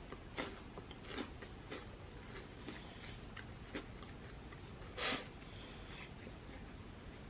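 Faint crunching and chewing of crispy fried rice cracker balls, a scatter of short crisp crunches, with one louder short rush of noise about five seconds in.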